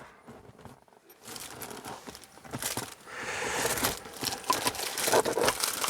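Hands rummaging through parts and wrappers: a crinkling, rustling noise with many small clicks and knocks. It starts about a second in and grows louder.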